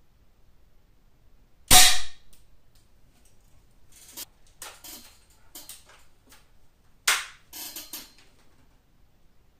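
Daisy 880 pump air rifle firing pellets, two sharp shots about five seconds apart, the first the loudest. Between them come several light clicks and knocks of handling.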